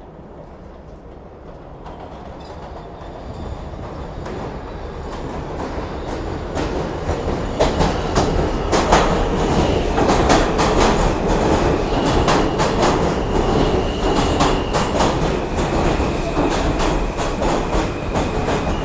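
New York City Subway R160 train (Alstom-built cars) pulling into a station: its rumble grows steadily louder for about eight seconds as it approaches, then wheels click over rail joints as the cars pass close by. A high steady squeal sets in about two-thirds of the way through as the train slows.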